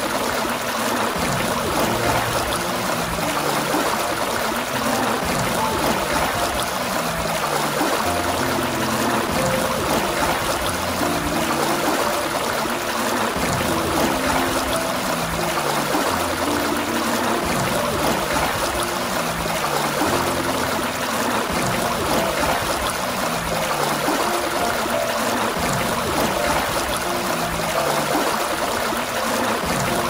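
Water gushing steadily from a fountain spout and splashing, an even, unbroken rush.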